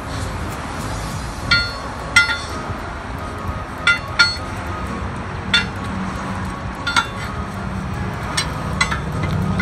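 A steel tyre iron clinking against the steel rim of a truck wheel as the tyre bead is levered onto it: about nine sharp, ringing metallic clinks at uneven intervals.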